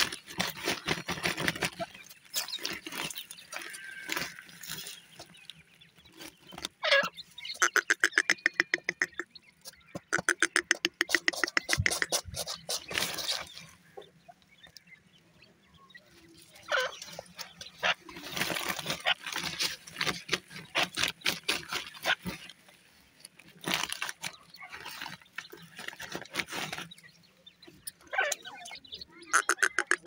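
Partridges calling in rapid trains of clucking notes, about ten a second, in several bursts of a few seconds each with short pauses between.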